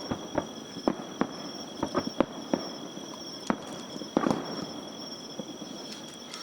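Aerial fireworks shells bursting in quick, irregular succession: sharp bangs, several a second, for about four and a half seconds, then fewer and more spaced out.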